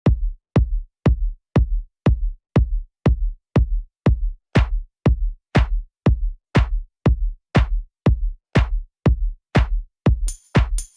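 Electronic dance music: a deep kick drum on every beat, about two beats a second, with a hissing high cymbal layer coming in near the end.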